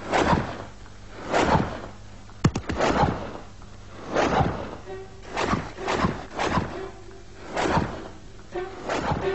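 Cartoon sound effects: a run of dull thuds and swishes, about ten at uneven intervals, over faint music, with a low held note entering about halfway through.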